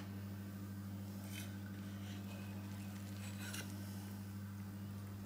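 A steady low hum, with a couple of faint soft scrapes of a metal spatula and knife against a plate as a slice of tiramisu is set down and shaped.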